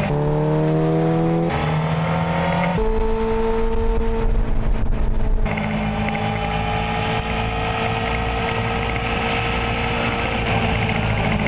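Racing sidecar outfit's engine running hard on a circuit, its pitch climbing as it accelerates. The sound jumps abruptly a few times in the first half, then settles into a steadier, slowly rising note.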